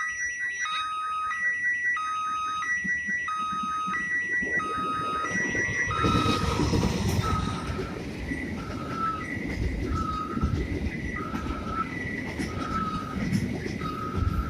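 Railway level-crossing warning signal ringing: an electronic two-tone alarm alternating steadily between a lower and a higher note, each held for about three-quarters of a second. A low rumble grows beneath it about six seconds in.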